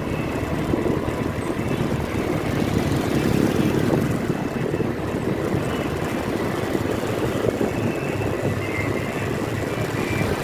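Steady road noise of a vehicle driving along a street: a continuous low rumble of engine and tyres, with no revving or sudden sounds.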